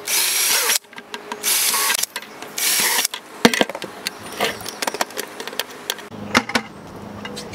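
Cordless drill boring holes through the rim of a plastic bucket in three short bursts over the first three seconds. After that, scattered knocks and clicks as hands handle the plastic bucket.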